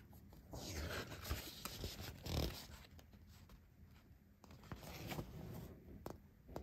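Paper rustling from a magazine being handled, in two stretches with a few small clicks.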